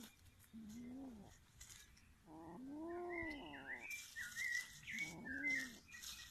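Domestic cat yowling in three drawn-out calls, each rising and then falling in pitch, the middle one the longest. Small birds chirp in the background near the middle of the clip.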